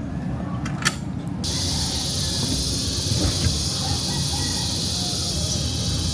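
Steady high-pitched chorus of insects that starts abruptly about a second and a half in, over a low rumble; a couple of faint clicks come just before it.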